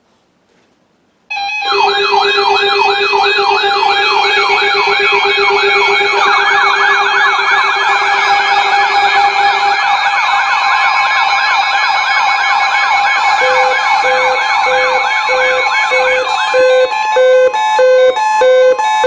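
Electronic alert sirens sounding together, several fast yelping sweeps layered over steady tones, starting suddenly about a second in. An electronic alarm tone beeping in quick, even pulses joins near the end.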